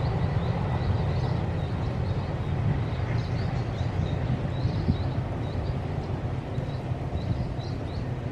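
Small birds chirping again and again over a low, steady rumble that slowly grows fainter.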